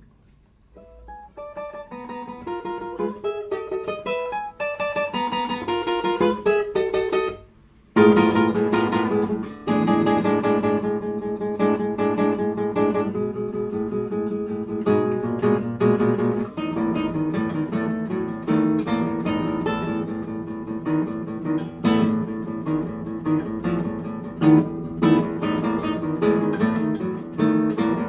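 Solo classical guitar playing: plucked notes enter one by one from near quiet, break off in a brief silence about seven and a half seconds in, then give way to loud, dense chords.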